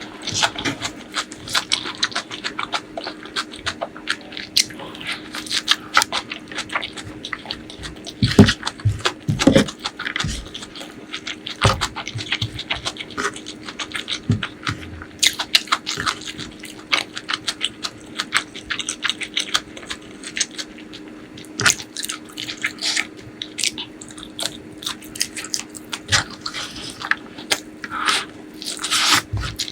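Close-miked eating sounds of a person chewing a meal of curry and rice: irregular wet smacks and mouth clicks, with a faint steady hum underneath.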